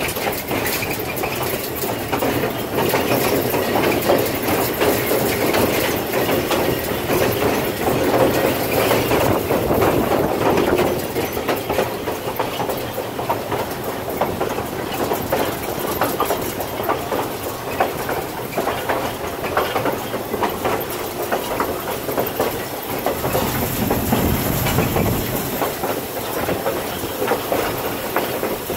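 Steam-hauled passenger train rolling along the track, heard from aboard: a steady rumble of wheels on rails with the clickety-clack of the rail joints. It is a little louder for the first ten seconds or so.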